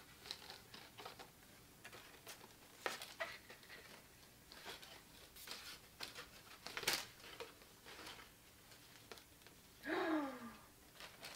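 Cardstock letter banner rustling and crinkling in the hands as it is untangled, with scattered light paper clicks and flaps. About ten seconds in, a woman's falling 'ohh' of dismay.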